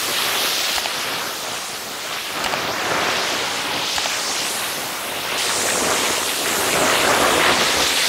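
Pool water fountains splashing steadily into the pool, a continuous rushing hiss of falling water.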